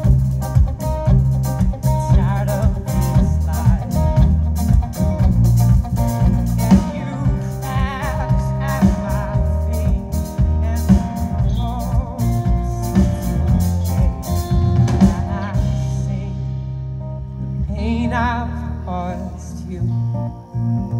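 Live rock band playing: electric and acoustic guitars with bass over a Tama drum kit. The drum hits thin out about three quarters of the way through, leaving sustained guitar notes with a few wavering pitch bends.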